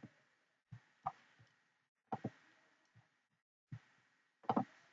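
Faint computer mouse clicks, about eight short clicks spread over a few seconds, some in quick pairs, the loudest near the end.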